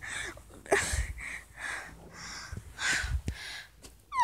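A girl's breathing, with a few short breathy gasps, and near the end a brief rising squeal of her voice.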